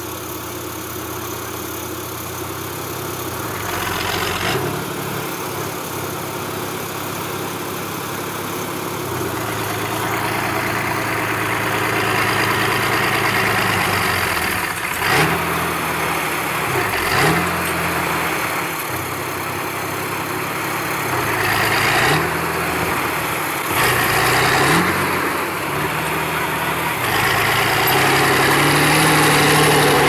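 Diesel engine of a Kirovets K-700-series articulated tractor stuck in deep snow, running and revving up again and again as it tries to pull free. The revs climb in short sweeps several times, and it runs loudest near the end.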